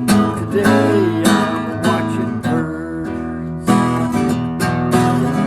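Acoustic guitar strummed in a steady rhythm of chords, an instrumental passage with no singing.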